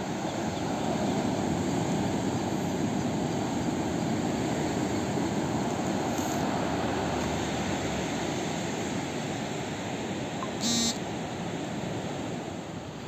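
Ocean surf washing on a sandy beach at night: a steady rushing that swells about a second in and slowly fades. A short beep sounds once near the end.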